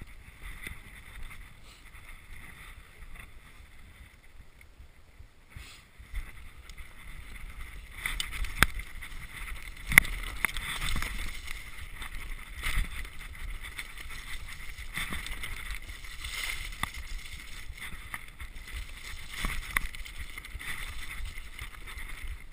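Downhill mountain bike rattling over rough, rutted dirt, with tyre noise, wind on the microphone and frequent sharp knocks from the frame and suspension. Quieter at first, then louder and busier from about six seconds in as the bike picks up speed, with one sharp knock a few seconds later standing out.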